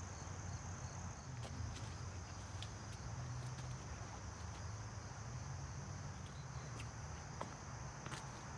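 Steady high-pitched insect chirring in a garden, with scattered light clicks and rustles and a low background rumble.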